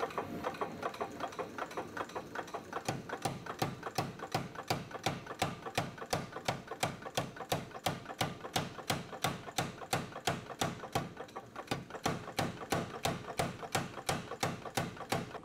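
Power hammer striking a red-hot steel chopper blade between its dies in a steady run of blows, about three a second, drawing out the edge bevel.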